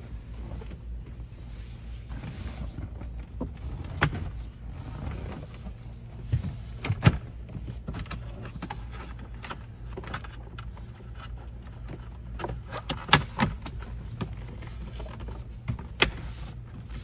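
Plastic dashboard panel being pressed down into place, with several sharp clicks and knocks as its clips seat, over a steady low hum.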